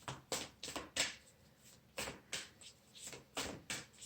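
A deck of tarot cards being shuffled by hand: a string of short, uneven card slaps and swishes.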